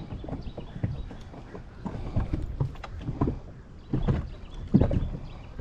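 Wind-driven water slapping against a small fishing boat's hull: irregular low knocks and splashes, loudest about four to five seconds in, over a low rumble of wind.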